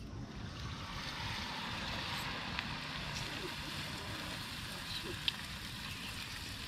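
Sel roti batter sizzling as it fries in a wok of hot oil: a steady hissing sizzle that starts sharply as the batter goes in. One sharp click about five seconds in.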